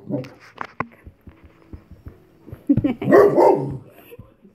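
Landseer dog barking for attention: a short bark at the start, then a louder burst of barking about three seconds in.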